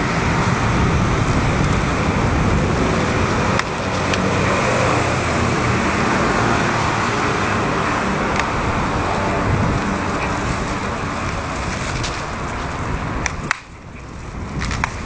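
Steady rushing noise of road traffic, dropping away suddenly about thirteen seconds in, followed by a few sharp clicks.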